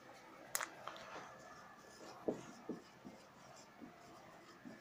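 Marker pen writing on a whiteboard: a few short, faint strokes and light taps, after a single sharp click about half a second in.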